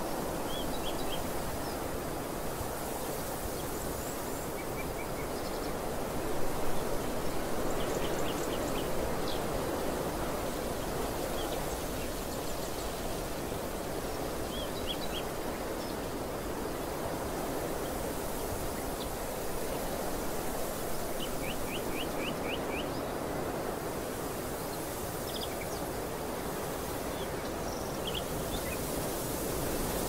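Steady rushing wind across an open field, briefly louder about six seconds in. Small birds call now and then in quick series of four to six high chirps.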